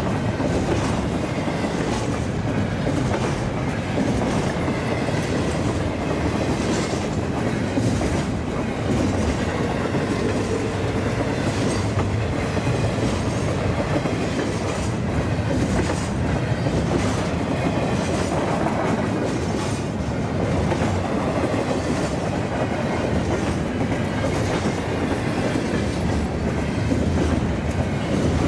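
Double-stack container well cars of a freight train rolling past at speed: a steady rumble of steel wheels on rail, with a repeated clickety-clack of wheels over rail joints.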